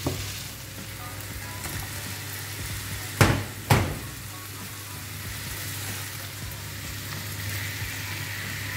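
Diced potato, carrot and onion sizzling steadily in oil in a stainless steel frying pan, with two sharp knocks a half-second apart about three seconds in.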